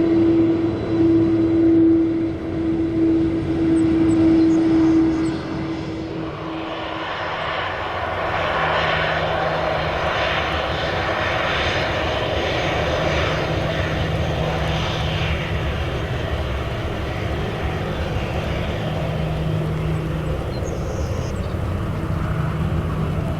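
Jet airliner engines running close by: a steady hum for the first few seconds, then a broad rushing jet noise swells up about seven seconds in and holds, with a slowly sweeping, phasing quality.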